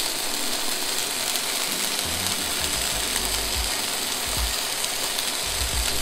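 Chicken breasts frying in a hot nonstick pan with a steady sizzle. From about two seconds in, low knocks and bumps come as seasoning is shaken over them.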